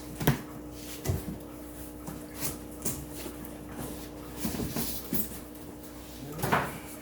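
Short knocks, taps and rustles of a fish shipping box and its plastic fish bags being handled, with a louder knock near the end, over a steady low hum.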